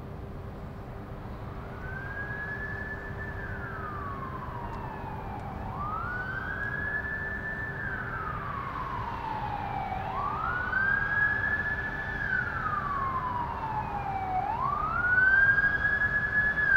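Emergency vehicle siren wailing in slow cycles, each rising, holding high, then sliding down, about four seconds per cycle. It fades in and grows louder as it approaches across the city, over a steady low hum.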